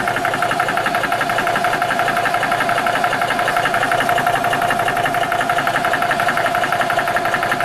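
Air Venturi RovAir portable high-pressure air compressor running steadily with a rapid, even pulsing, its cooling fan running with it, as it builds pressure from about 1,000 toward 2,000 psi.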